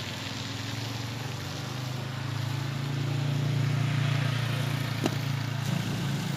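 A vehicle engine running with a low, steady hum that swells louder around the middle and eases off again. One short sharp click about five seconds in.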